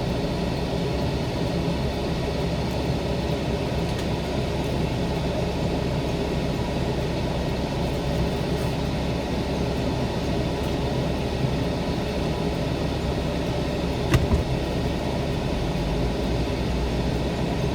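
Off-road vehicle engine running steadily at a low, crawling pace, with a single sharp knock about fourteen seconds in.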